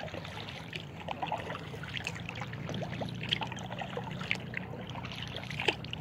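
Kayak paddle working the water: irregular small splashes, with water trickling and dripping off the blades, over a steady low hum.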